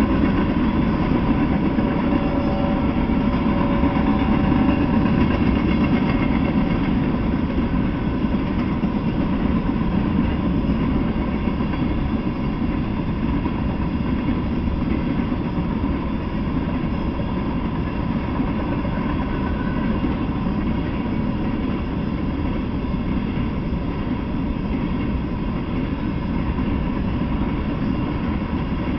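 Norfolk Southern freight train of covered hopper cars rolling past, a steady rumble of wheels on the rails that fades slightly over the span.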